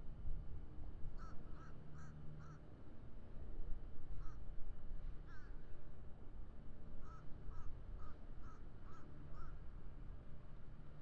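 A crow cawing in short repeated calls: a quick series of about four just after the start, two single caws in the middle, then a run of about six near the end. Under it runs a steady low engine rumble.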